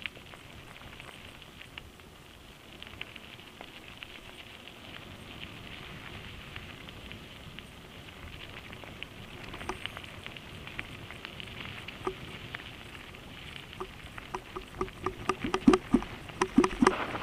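Mountain bike rolling fast down a gravel road: steady tyre noise on loose stones with scattered clicks of gravel and bike rattle. From about fourteen seconds in, a quick run of louder knocks and rattles as the bike bumps over timber water bars crossing the road.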